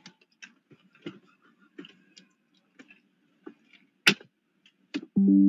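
Faint, irregular clicks and ticks, with one sharper click about four seconds in. Near the end a loud, steady pitched tone with several notes sounding together starts abruptly.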